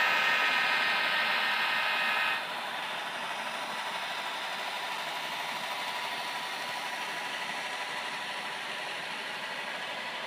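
HO-scale Santa Fe diesel locomotives passing: a loud horn blast from a model sound decoder cuts off suddenly about two seconds in. It gives way to the locomotives' steady engine and running noise.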